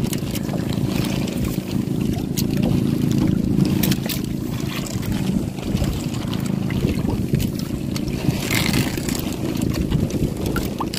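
A small engine runs with a steady low drone, while water splashes along the side of the outrigger boat. Scattered light clicks and knocks come from the boat.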